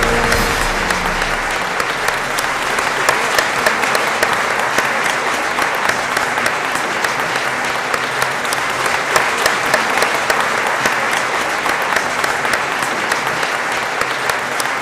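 Audience applauding steadily, with the tail of music ending about a second in.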